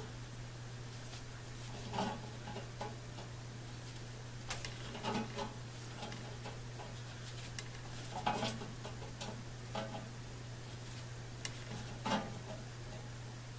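Dunlop saw set clicking as it is squeezed onto the teeth of a crosscut handsaw, setting one tooth at a time: a short metallic click about every three to four seconds, with a few fainter clicks between. A steady low hum runs underneath.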